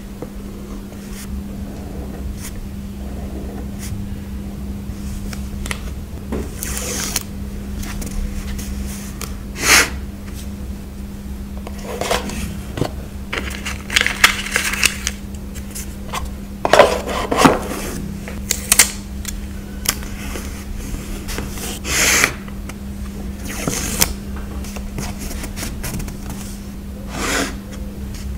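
Close-up handling of stickers and paper while decorating a journal: irregular crinkles, peels, taps and small scrapes, some louder than others. A steady low hum runs underneath.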